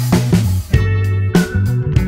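Background music: a bass line and pitched instruments over a steady drum beat.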